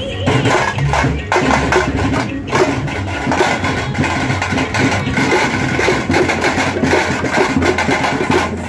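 Loud festival music dominated by drums and percussion, played with a dense, driving beat.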